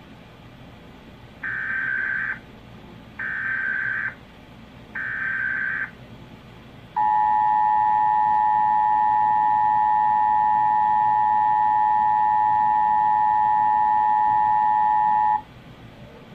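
Emergency Alert System national test tones: three one-second bursts of SAME digital header data, then the steady two-tone EAS attention signal held for about eight seconds before it cuts off suddenly.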